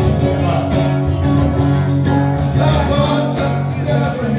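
Forró band playing an instrumental passage between sung lines, with guitar and a steady beat.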